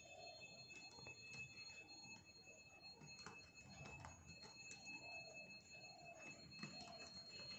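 Faint, steady ringing of a puja bell in the background, with soft, scattered clicks of computer keyboard keys.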